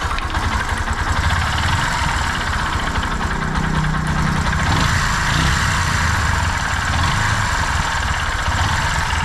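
Bajaj Discover 125 ST's single-cylinder engine idling steadily just after starting. The tik-tik of its loose cam chain is reduced after the timing was tightened, but it does not run fully smooth, since the old cam chain and other worn parts were left in.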